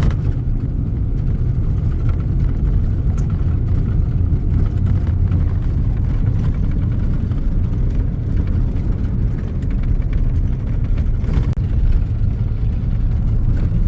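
Steady low rumble of a vehicle driving on a road: engine and tyre noise.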